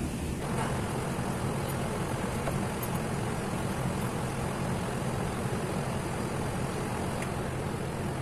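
Steady mechanical hum with a constant rush of air-like noise, with no starts or stops.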